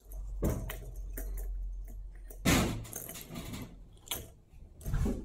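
Cat batting a plastic spring-mounted cat toy: scattered plastic clicks, rattles and knocks, the loudest about two and a half seconds in.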